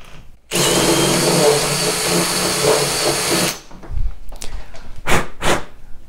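Cordless drill spinning a 1-inch hole saw to re-bore the existing deadbolt hole in a door. It runs steadily for about three seconds, then stops, and a few short scraping bursts follow.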